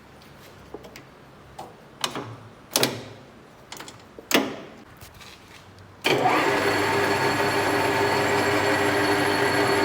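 Speed-change levers on a TV 280 all-geared lathe's headstock clicking and clunking a few times as new gears are selected. About six seconds in, the lathe starts up suddenly and runs steadily, its geared headstock giving a hum with several steady whining tones.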